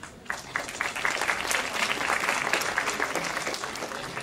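An audience applauding. Scattered claps begin a moment in, swell into a full round, and thin out near the end.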